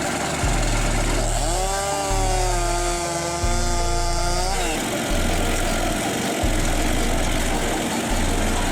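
A homemade firewood processor running, with a chainsaw-type saw engine. About a second and a half in the saw's pitch rises and holds a steady whine for about three seconds while it cuts, then drops away, over the machine's low running drone.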